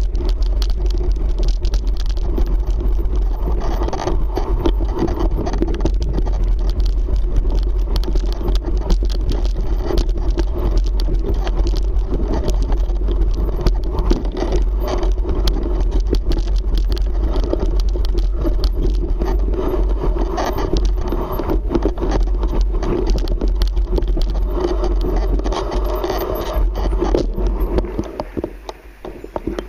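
Mountain bike riding down a rocky singletrack: continuous rattling and clatter of the bike over stones with tyre noise and wind rumble on the microphone. Near the end it quietens as the bike slows.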